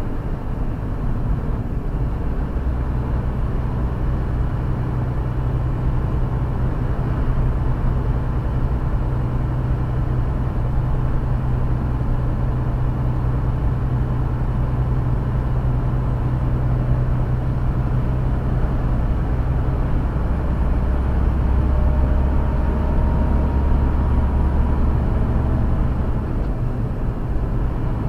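Large truck's engine droning steadily with tyre and road noise, heard from inside the cab while cruising on a highway. The engine note drops to a deeper hum about two-thirds of the way through and returns to its higher tone near the end.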